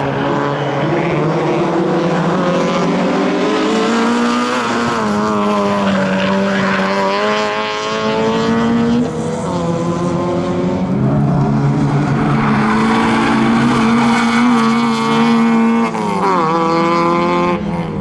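Citroen Saxo rally car's engine revving hard on a tight sprint course, its pitch repeatedly climbing and then dropping as the driver shifts gear and lifts for corners, with sharp lifts about halfway through and twice near the end.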